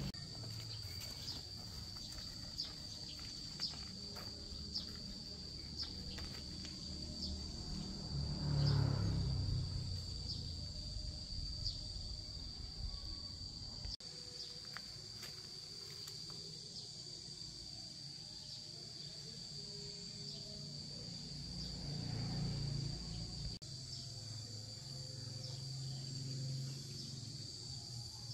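Steady high-pitched insect drone, like crickets or cicadas, with faint pulses about once a second. A low rumble swells about a third of the way in and again in the last few seconds.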